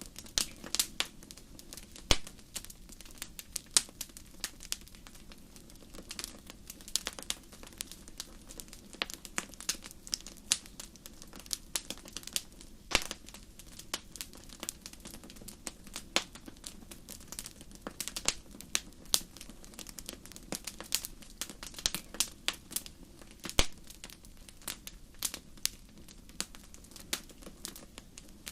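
Campfire wood burning, crackling with many irregular sharp snaps and pops over a low steady rush of the flames.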